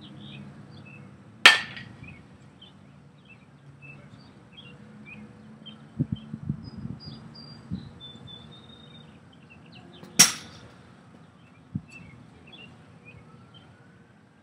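A baseball bat striking a pitched ball twice, about nine seconds apart: each hit a sharp crack with a brief ringing tail. A few softer thuds fall between and after the hits.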